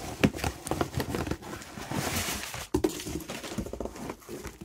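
Hands handling a bubble-wrapped package in a cardboard box: plastic bubble wrap crinkling and rustling, with a few sharper clicks and knocks.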